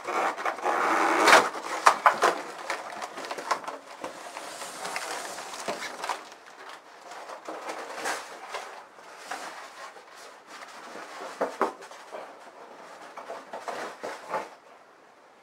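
Polystyrene foam packing insert being lifted out of a cardboard box, with a loud scrape and creak of foam on cardboard at first. Then comes irregular rustling and light knocks as the packaging is handled, dying away about a second before the end.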